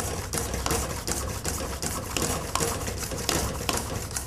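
Spätzle grater (Spätzlehobel) being pushed rapidly back and forth along its metal rail over a pot, its dough-filled hopper rattling and clacking in quick, irregular strokes as the dough is pressed through into the water.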